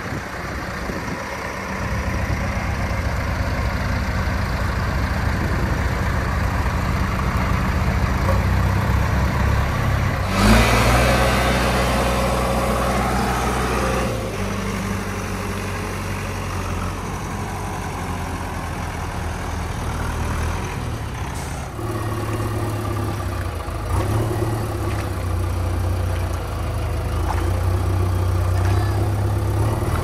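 Diesel engine of a JCB 3DX backhoe loader running as it works in shallow water, its note steady with a few shifts in pitch. About a third of the way in, a loud burst of rushing noise lasts a few seconds.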